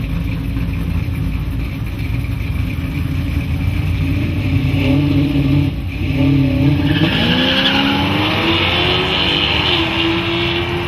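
Two drag-race vehicles, an early-1960s Chevy II two-door and a pickup truck, with engines running at the start line and revved in short blips, then launching: the engine note climbs steeply about six seconds in and keeps rising as they accelerate away, with a hiss of tyres and exhaust.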